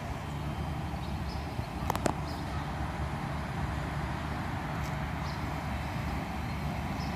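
Steady low outdoor rumble, with two sharp knocks close together about two seconds in.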